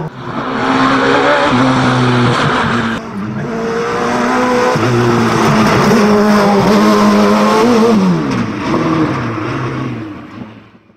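Radical SR3 race car engine at high revs, pitch climbing and stepping with quick gear changes as it accelerates uphill. Around eight seconds in the pitch falls in steps as it shifts down, then the sound fades out near the end.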